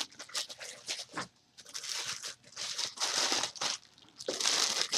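Packaging rustling and crinkling as a new impact wrench is pulled out of its box, in four uneven bursts of about a second each with short pauses between.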